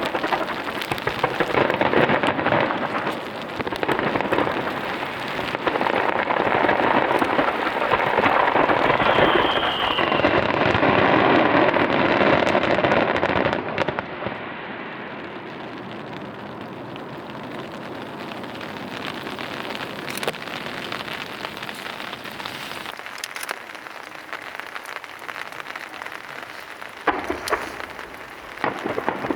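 Starmine fireworks barrage: a dense run of bursts and crackle, loud for the first half, then dying down to a steady hiss about halfway through, with a few sharp bangs near the end.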